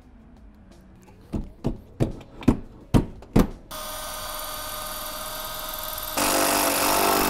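A run of six sharp knocks about half a second apart, then a power drill starts with a steady whine. About two seconds later it grows louder and harsher as it bites into the van's aluminium panel to make a hole for the sign's cable, then stops abruptly.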